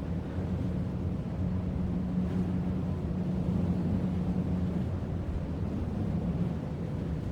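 Strong wind heard from under a roof: a steady low rumble with a low hum that swells in the middle and eases toward the end.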